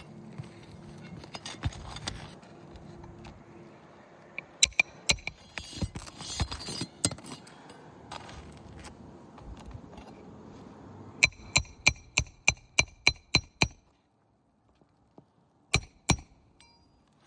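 Hammer striking metal during shingle repair: a quick, even run of about ten ringing blows at roughly four a second, then two more blows near the end. Before that, scattered clicks and scraping of hand tools on the shingles.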